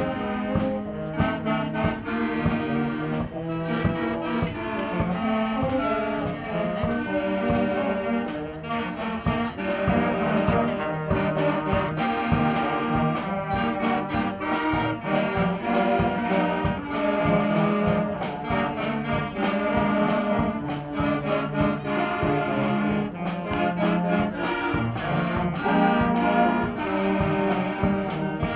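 School concert band playing a piece: clarinets, saxophones and brass together, with a steady beat.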